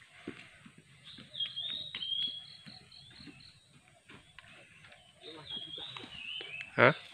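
A bird calling in quick runs of high repeated notes and short falling whistles, in two bouts. Near the end comes one short, loud sound.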